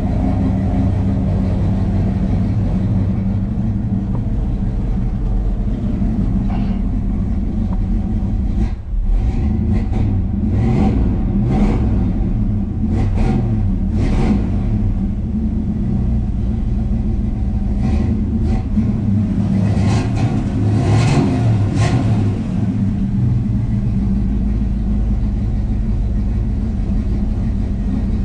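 1968 Pontiac GTO's rebuilt original V8 running at idle after its first start in six months, with a few short throttle blips in two bunches, about a third of the way in and again about three quarters of the way in.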